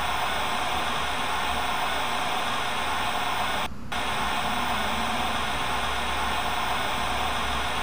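Steady static hiss from an untuned receiver, with one brief drop-out a little under four seconds in.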